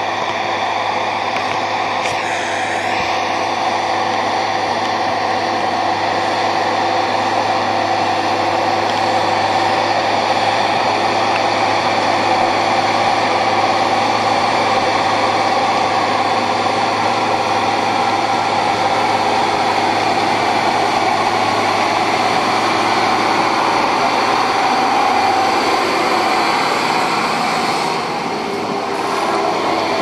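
John Deere 6910 tractor's six-cylinder diesel engine working steadily under load, pulling a power harrow and combination drill. It gets a little louder as the tractor comes closer.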